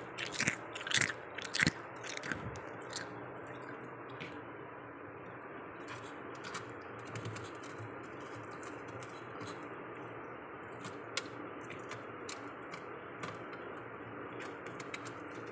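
Freezer frost and ice being broken loose, crunching loudly several times in the first two seconds, then giving only faint, scattered cracks and clicks over a steady background hum.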